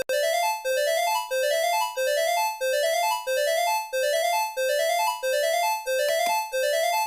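Emergency-alert-style electronic alarm tone looping without pause: a quick run of four or so notes climbing in pitch, repeated about every two-thirds of a second. A brief click and dropout come right at the start.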